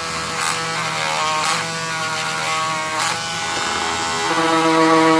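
Small electric rotary tool running a wire wheel brush against a die-cast metal body, polishing the stripped casting: a steady motor whine with a few brief scratches, getting louder and changing tone a little after four seconds in.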